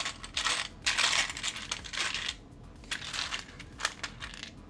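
Small plastic building-block pieces clattering as a hand rummages through a box of loose pieces. The clicking is dense for the first couple of seconds, then thins to a few scattered clicks.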